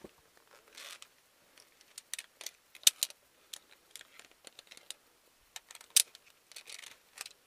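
Via ferrata lanyard carabiners clicking and clinking against each other and the steel safety cable as they are moved and clipped, with sharp clacks about 3 s and 6 s in and a couple of brief scrapes.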